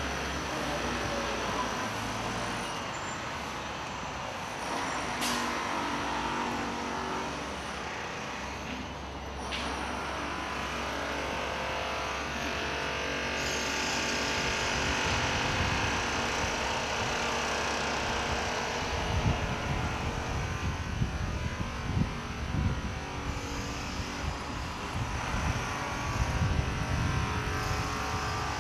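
City street traffic: cars and other motor vehicles running and passing, a steady mix of engine and tyre noise, with irregular low rumbles in the second half.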